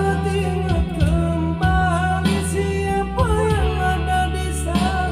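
Music: a song with held bass notes under a melody that glides between sustained notes, sung by an amateur singer over a backing track.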